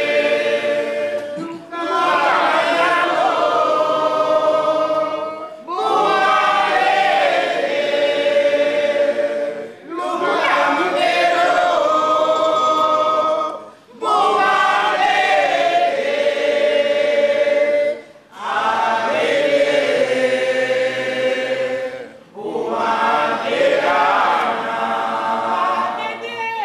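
Group singing without accompaniment, a woman's voice leading at the microphone with others joining in. It goes in phrases of about four seconds, each ending in a short break for breath.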